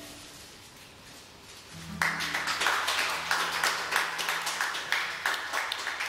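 Small audience applauding, starting suddenly about two seconds in after a near-quiet lull.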